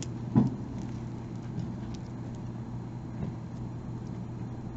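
A chain necklace with bezel-set pendants being handled and laid out on a table: one light knock about half a second in, then a few faint clicks of chain and settings. A steady low hum runs underneath.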